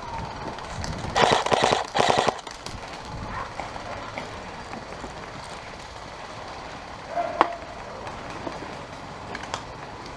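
Airsoft gun firing on full auto: two quick bursts of rapid clicking shots about a second in, then one more sharp shot near the end.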